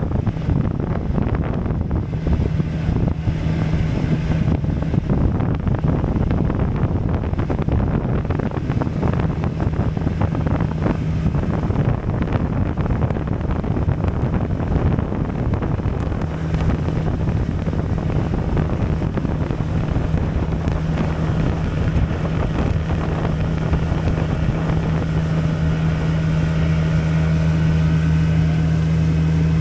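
Outboard motor on a small boat running steadily while under way, with wind noise on the microphone. The engine's low hum comes through more strongly and clearly in the second half.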